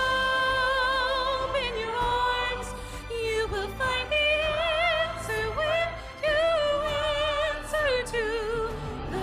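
Female voices singing long, held notes with vibrato over a soft instrumental accompaniment, moving from note to note without clear words.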